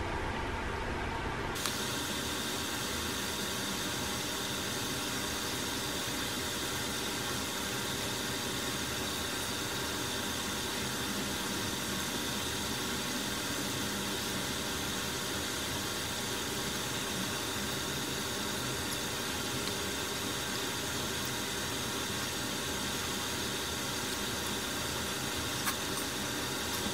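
Steady hiss of room noise that cuts in abruptly about a second and a half in and then holds level, with a faint high steady tone through it. A couple of faint clicks come near the end.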